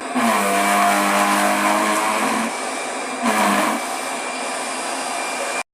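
Vacuum cleaner running loudly, a steady rush of air over a motor hum; the hum drops briefly in pitch about three seconds in, then settles, and the sound cuts off abruptly near the end.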